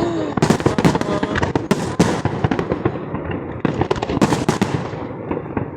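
Fireworks display: many rapid overlapping bangs, pops and crackles, coming in thick clusters with brief lulls between.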